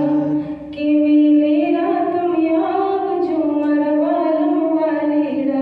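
A woman singing a slow melody, holding long notes that glide gently up and down between pitches.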